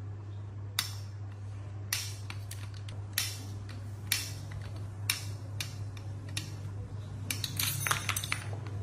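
Sharp metallic clinks of small metal parts or tools being handled, about one a second, with a quick flurry near the end, over a steady low hum.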